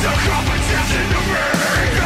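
Loud background music with a steady, driving beat.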